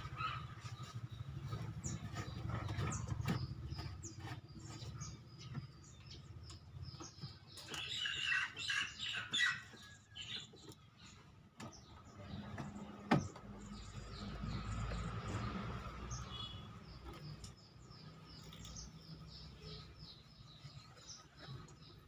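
Hands working a twin-tub washing machine's plastic drain valve loose: scattered small clicks and rattles of plastic, with a burst of short high chirps about 8 seconds in and one sharper click about 13 seconds in. The valve is being removed because it leaks even when shut.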